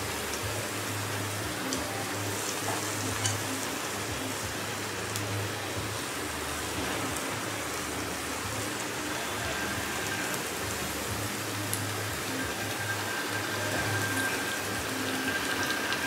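Batter-coated potato slices deep-frying in hot refined oil in a kadai: a steady sizzling hiss with small scattered crackles and pops.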